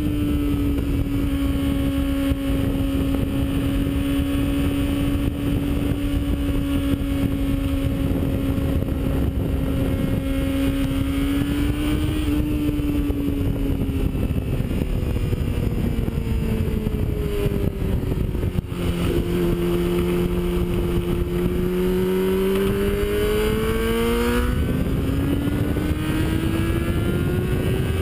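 Yamaha sport motorcycle's engine at cruising speed, heard from on board over heavy wind rush. The note holds steady, sinks as the rider eases off through the middle, then drops suddenly at a gear change about two-thirds through and climbs again as the bike accelerates.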